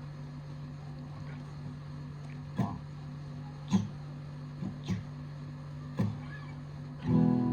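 Steady low hum with five short, sharp sounds scattered through it, then an acoustic guitar starts strumming near the end as the song begins.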